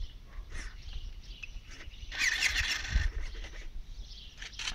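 Birds chirping outdoors, with a short flurry of quick high calls about two seconds in. Small clicks and handling noises, and a low rumble of wind on the microphone, sit underneath.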